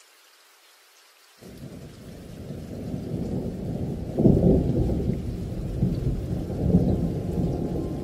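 Rolling thunder in a rainstorm: a low rumble starts suddenly about a second and a half in, builds, is loudest about four seconds in and keeps rumbling, over a faint hiss of rain.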